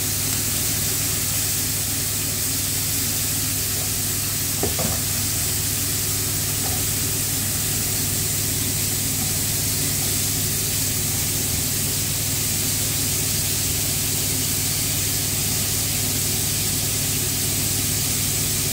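Pork fillets with garlic sizzling steadily in hot olive oil in frying pans, with a brief click of metal tongs turning the pieces about five seconds in.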